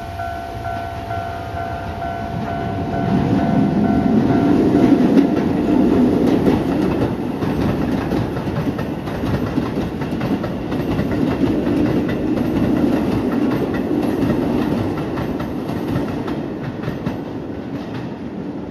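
A level crossing bell rings in quick repeating tones that drop out about four and a half seconds in. A Keisei 3000 series electric train runs over the crossing, loudest a few seconds in, its wheels clicking over the rail joints, and the noise eases near the end.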